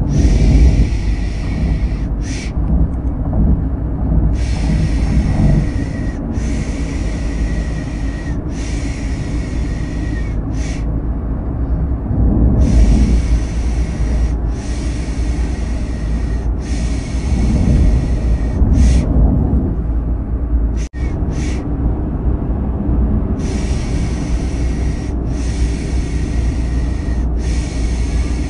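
Steady car engine and road rumble with a rhythmic 'piş piş' shushing laid over it, a soothing sound for lulling a baby to sleep. The shushes come in groups of three long hisses and one short one, repeating with short pauses, and the sound cuts out for an instant about two-thirds of the way through.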